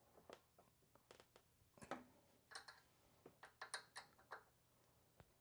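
Faint, irregular metallic clicks and taps of a hex key being fitted into and turned in the crank-arm bolts of a NordicTrack S22i exercise bike, with hands handling the crank.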